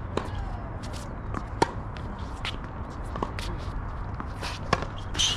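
Tennis rally on a hard court: sharp racquet strikes on the ball about every second and a half, four in all, with lighter ball bounces and footsteps in between.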